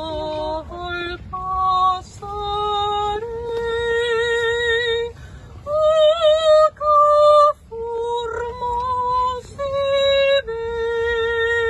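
A woman singing solo and unaccompanied, holding long notes, some with vibrato, with short breaks between phrases.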